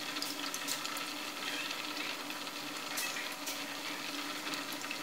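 Pot of chicken and corn soup bubbling on the boil, a steady soft hiss, with a few light clicks of chopsticks against a porcelain bowl of beaten egg.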